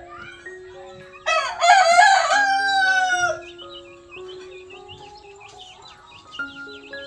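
A rooster crowing once, loud, for about two seconds and ending in a long drawn-out note, over soft background music with a simple melody of held notes.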